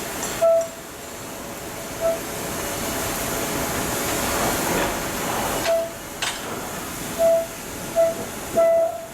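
Short, single-pitched beeps, about six at irregular intervals, over a steady rushing noise that swells about halfway through and then falls back.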